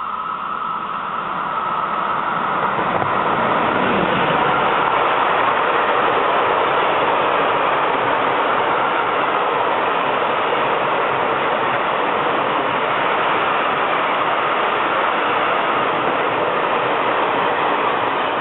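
Freight train of open box wagons passing on the through track: rolling wheel and rail noise that builds over the first few seconds as the train draws near, then holds steady while the wagons go by.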